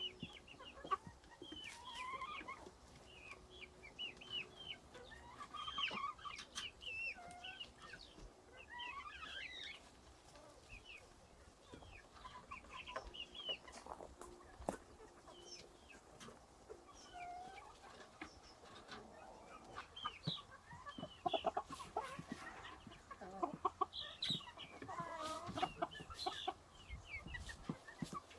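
Domestic chickens clucking and calling, a string of short calls throughout with a few sharp clicks in between.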